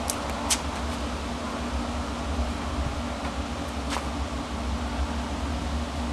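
A steady low mechanical hum, like a fan or motor running, with a few light clicks near the start and another about four seconds in.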